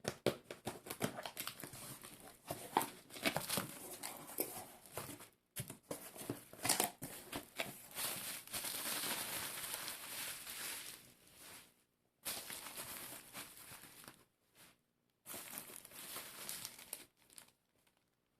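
Packaging being unwrapped by hand: irregular crinkling and rustling of wrapping with some tearing, in uneven bursts with brief pauses, including one longer stretch of steady rustling around the middle.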